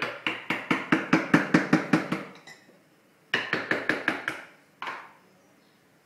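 Rapid tapping on a hard object, about six or seven strokes a second with a short ring after each. It comes in a run of about two seconds, stops for about a second, returns for about a second, then ends with a single knock.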